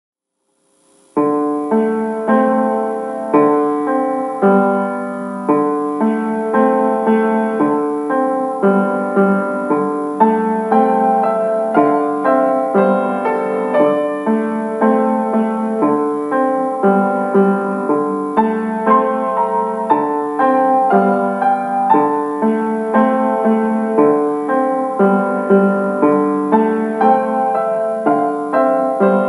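Background piano music, a steady stream of notes beginning about a second in.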